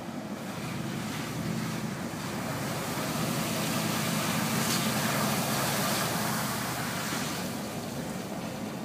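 A car driving along a road, heard from inside: steady engine hum and tyre and road noise, swelling louder for a few seconds in the middle, then easing off.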